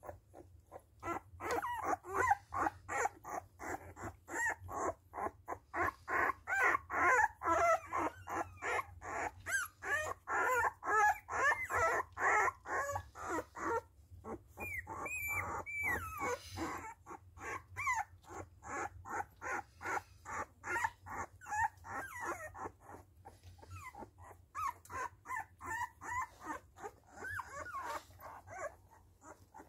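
A litter of newborn puppies squeaking and whimpering in rapid, overlapping short cries, busiest in the first half, with one longer high-pitched whine about halfway through.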